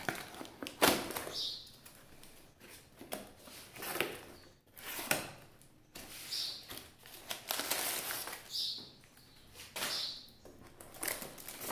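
A knife slitting packing tape on a cardboard box, then the box being opened and its contents handled: irregular scraping, tearing and rustling of cardboard and paper, with a sharp click about a second in.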